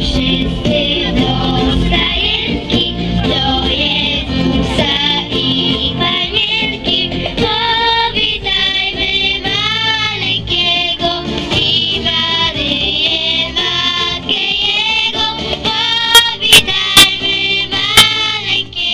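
A Polish Christmas carol sung by women's and children's voices with instrumental accompaniment. Four sharp clicks come near the end.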